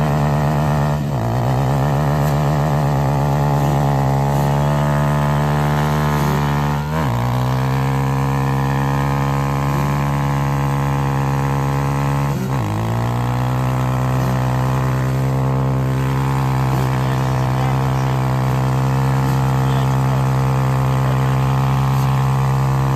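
Pit bike engine held at high revs during a burnout, the rear tyre spinning on asphalt. The revs dip and climb back three times, then hold steady.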